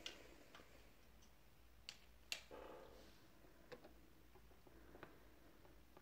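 Near silence: room tone with five faint, scattered clicks and taps. The loudest comes a little over two seconds in and is followed by a brief soft rustle.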